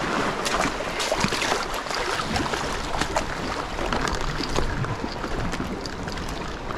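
Sea water washing and trickling over a rocky shore shelf, with irregular scrapes and knocks of footsteps on the rough rock.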